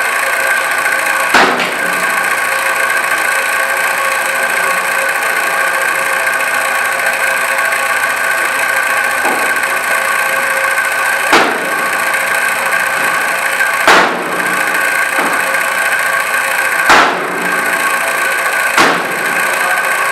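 Cleaver chopping chicken on a plastic cutting board: five sharp chops at uneven gaps over a steady machine hum like a running motor.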